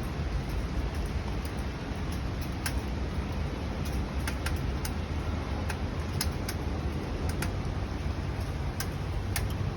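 Strong wind and heavy rain of a tropical cyclone: a steady low rushing noise with irregular sharp ticks scattered through it.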